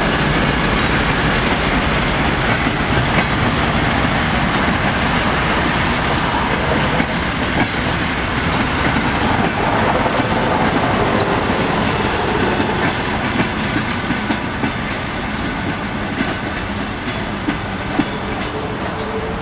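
Passenger coaches of a suburban train hauled by a TEP70 diesel locomotive rolling past, their wheels clattering over the rail joints in a steady clickety-clack, easing off somewhat in the last third as the train draws away.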